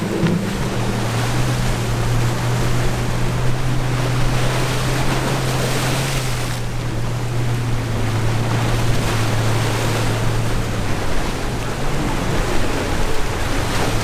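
Boat engines droning steadily over surf and wind on the microphone; the engine tone fades out about eleven seconds in, leaving the waves and wind.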